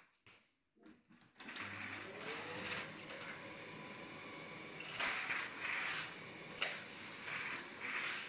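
A few soft steps and knocks, then a canister vacuum cleaner switches on about a second and a half in, its pitch rising as the motor spins up. It then runs steadily, swelling louder several times as the floor head is pushed back and forth over the hard floor.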